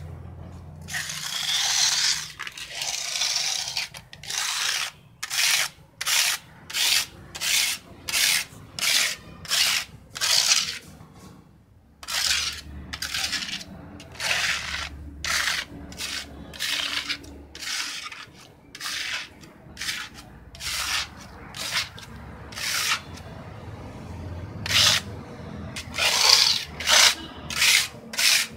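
A flat scraper is drawn back and forth across the top of a chalk mould, scraping off surplus wet plaster in quick hissing strokes, about two a second. There is a brief pause about 11 seconds in, and longer smoothing strokes follow.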